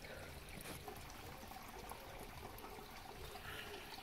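Faint, steady trickling of running water.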